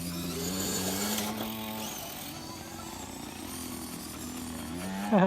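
Electric motor and gears of a radio-controlled rock crawler whining, the pitch rising and falling with the throttle. A brief louder burst with a quick swing in pitch comes near the end.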